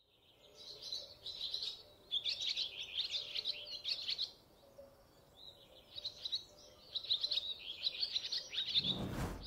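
Small birds chirping and twittering in two bouts of rapid high calls, fading in at the start. Near the end comes a short burst of rushing noise.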